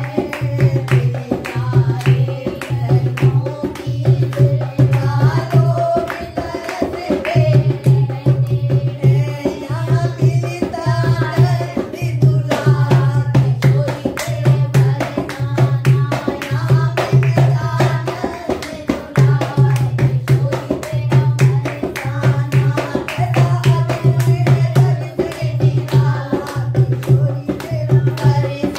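Women singing a Hindi Krishna bhajan with a dholak drum and steady hand-clapping. The drum keeps a steady rhythm, dropping out briefly twice.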